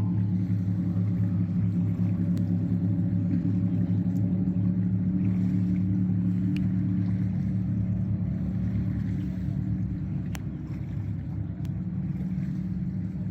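An engine running steadily with a low, even drone, easing off a little about ten seconds in.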